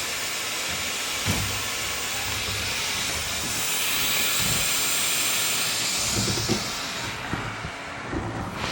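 Wyze robot vacuum running with a steady suction hiss. The hiss swells about halfway through, then its upper end falls away shortly before the end, with a few light knocks underneath.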